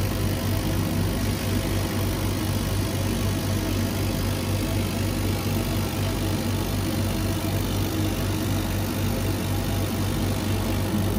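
Laser cutter running while contour-cutting a print-faced MDF panel: a steady mechanical hum and whir, unchanged throughout.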